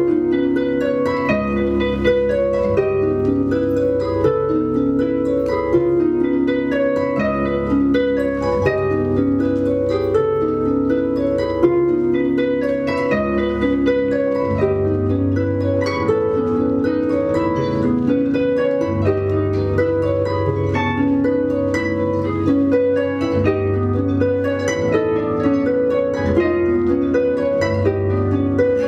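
Two concert harps playing together: a continuous stream of plucked notes over held low bass notes.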